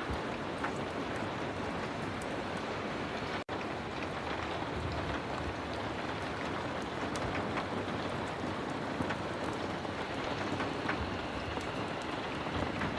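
Heavy rain falling steadily, a dense even hiss with scattered small ticks of drops. The sound cuts out for an instant about three and a half seconds in.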